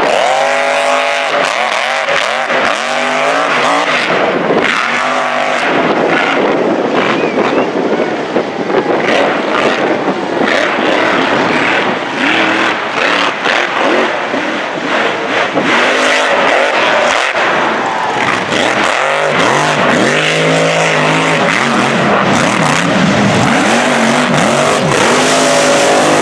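Mega truck engine racing hard, its pitch climbing and falling again and again as the driver revs up through the dirt course.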